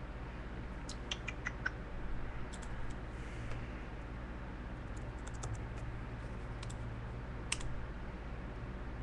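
Computer keyboard and mouse clicks, a few short clusters of taps with pauses between, over a steady low electrical hum.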